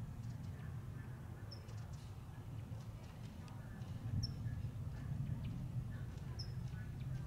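Steady, distant low rumble of a climbing Boeing VC-25A (747) four-engine jet, with three short, high bird chirps spread through it.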